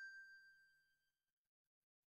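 Faint fading tail of a single bell-like ding, a subscribe-animation notification sound effect, dying away a little over a second in; then near silence.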